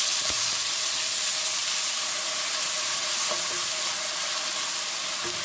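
Onion paste sizzling as it fries in hot oil in an aluminium pot, a steady hiss, while a wooden spatula stirs it around the pan.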